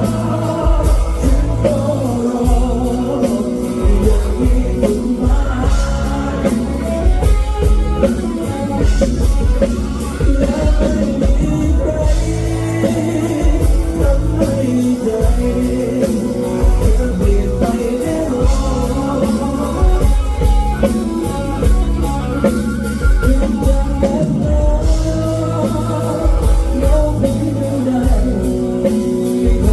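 Band music with a steady heavy beat and singing.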